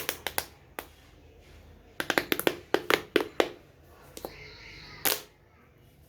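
Plastic pop tubes clicking and crackling as their ribbed segments snap while being stretched and squeezed: irregular clusters of sharp clicks, with a longer crunch about five seconds in.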